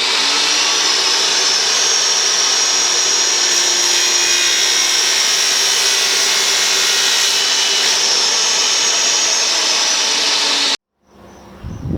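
A power tool running steadily at full speed, then stopping abruptly near the end.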